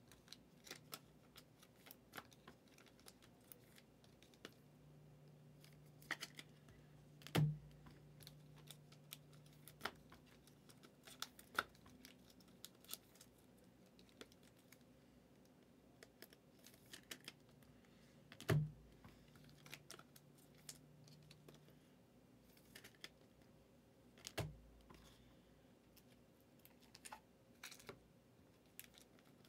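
Faint, scattered clicks and taps from hands working at a desk, with three louder thumps, about seven, eighteen and twenty-four seconds in.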